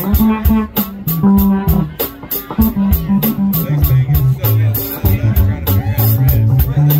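Live band playing an instrumental passage: a drum kit keeping a steady beat with cymbal strokes about four times a second under a moving low bass line and plucked guitar notes.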